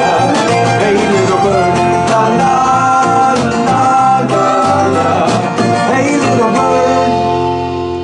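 Live band of acoustic and electric guitars playing with several voices singing in harmony, closing on a held final chord that rings out from about six and a half seconds in.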